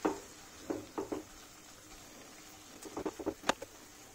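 Stainless-steel potato masher pressing cooked green peas in a kadai: irregular short taps and squishes as the masher hits the pan bottom, with a cluster of them about three seconds in and the loudest knock just after.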